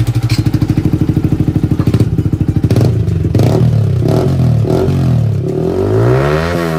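Yamaha MT-15's single-cylinder engine running through an aftermarket carbon-fibre slip-on silencer held by hand on the link pipe, idling with a fast, even pulse. From about three seconds in the throttle is blipped, the pitch rising and falling, with a longer rev near the end.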